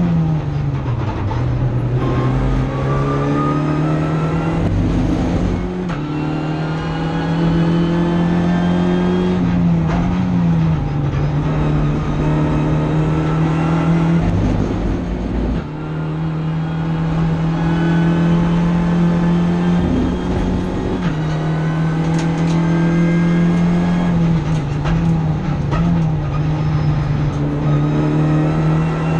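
Renault Clio Cup race car's engine heard from inside the cockpit, running hard at racing speed. Its note climbs under acceleration and drops back sharply several times at gear changes and braking, with a few sharp clicks about three-quarters of the way through.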